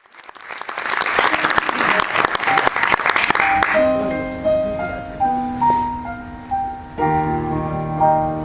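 Audience clapping, which dies away after about three and a half seconds. Then a piano begins the song's introduction with single notes and sustained chords.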